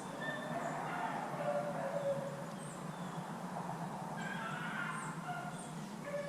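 Pack of beagles baying while running a rabbit's trail: scattered drawn-out howling notes, with small birds chirping.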